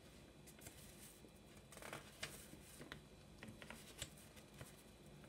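Faint rustling and light clicks of small packaging being handled and unwrapped by hand, a little louder around two seconds in and again around three to four seconds in.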